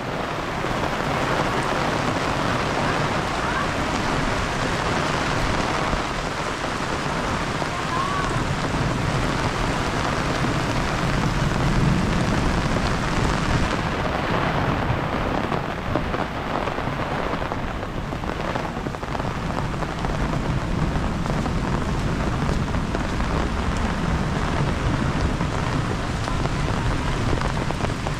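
Heavy rain falling steadily, with low rolling thunder rumbling under it and swelling about twelve seconds in.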